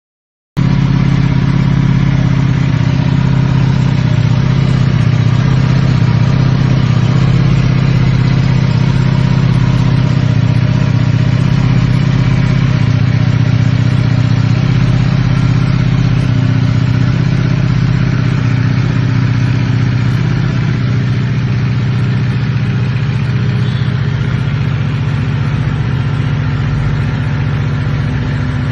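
Motorcycle engine idling steadily through its exhaust, a loud, even low note with no revving; it cuts in abruptly just after the start.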